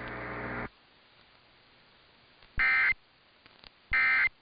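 A steady hum cuts off abruptly under a second in. Then come two short screeching bursts of Emergency Alert System digital data, each about a third of a second long and a little over a second apart: the SAME end-of-message code that closes the severe thunderstorm warning.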